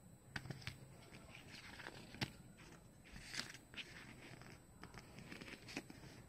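Handling of a plastic CD jewel case and its paper booklet: a few sharp plastic clicks and soft paper rustles as the booklet is taken out and opened.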